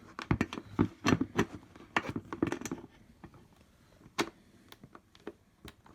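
Small metal clicks and knocks of screws, nuts and the buggy's metal frame being handled while a screw is worked into its hole. They come thick in the first three seconds, then thin out to a few single clicks, one sharper knock about four seconds in.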